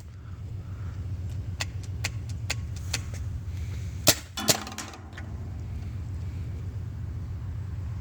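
Two paintball gun shots about half a second apart, a little after the middle, preceded by several light clicks. A steady low hum runs underneath.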